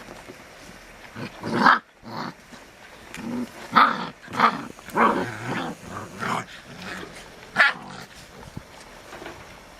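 Caucasian Ovcharka/English Mastiff cross puppies growling and giving short barks in play, a run of brief calls over about six seconds that stops about eight seconds in.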